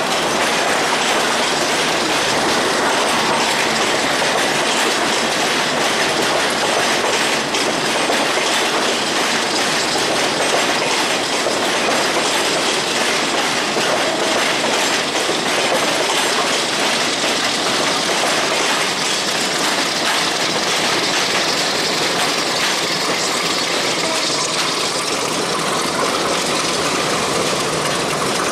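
Passenger train coaches rolling on the track: a steady clickety-clack of wheels over the rail joints, with a faint wheel squeal in the later part as the train takes the curves.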